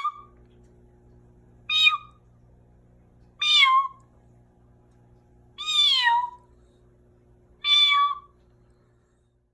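An animal's cat-like mewing call, short and falling in pitch, repeated four times about every two seconds, over a faint low hum.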